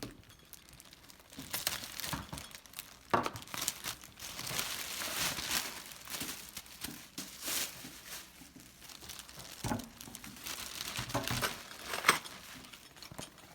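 Plastic packaging being handled and crinkled, with irregular rustles and sharp crackles.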